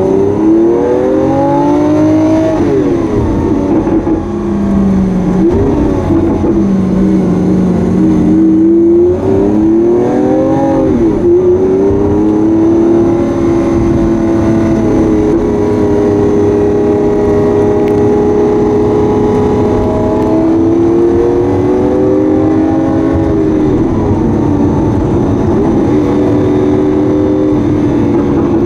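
Lamborghini Aventador S's V12 engine on its stock exhaust, heard on board, pulling hard with the pitch climbing, dropping back several times as it shifts or lifts off, and holding steady for a long stretch in the middle before climbing again.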